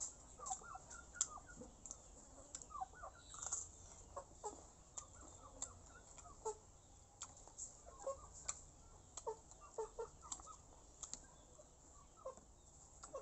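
Chickens clucking in short, separate calls every second or so, mixed with crisp clicks of crunching as a small raw green fruit is chewed.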